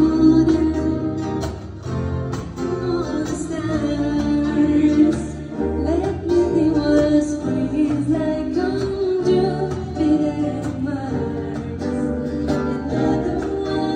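A woman singing a song into a handheld microphone over musical accompaniment with guitar.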